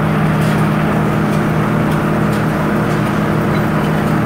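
Sawmill machinery running steadily with no cut under way: a loud, even hum with faint ticks about once a second.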